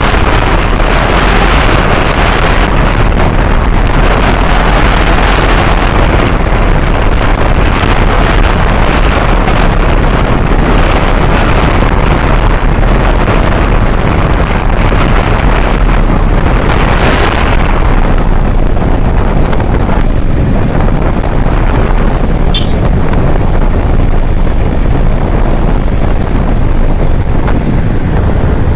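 Wind rushing and buffeting over the microphone of a Kawasaki Ninja 650 on the move, with the motorcycle's engine running underneath, steady and loud with gusty swells.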